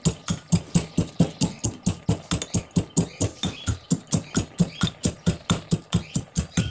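Pestle pounding fried peanuts in a small steel mortar, in quick, even strikes about five a second, crushing the nuts coarsely.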